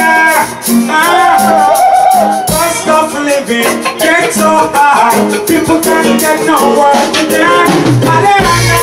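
Live reggae band playing with a man singing into a handheld microphone over bass, drums and keyboard, with a steady ticking percussion rhythm.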